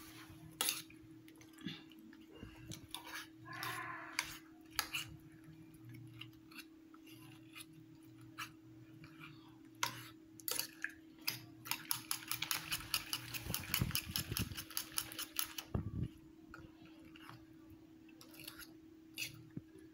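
A metal fork beating raw egg and chopped vegetables in a ceramic bowl, clinking against the bowl in irregular strokes, then fast, even whisking for a few seconds about twelve seconds in. A faint steady hum lies underneath.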